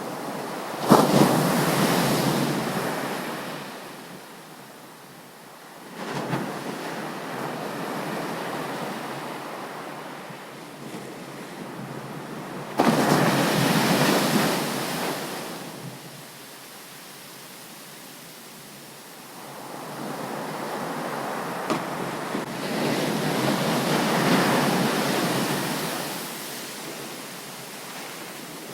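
Ocean surf on a beach, waves breaking and washing back in four surges. Two of them crash in suddenly, about a second in and near the middle, and the others swell up more gently.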